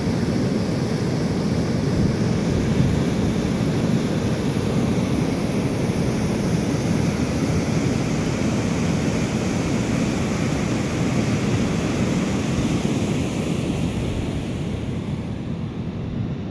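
Water discharging from an outlet at the foot of a dam and plunging into the pool below: a steady rushing noise that eases slightly near the end.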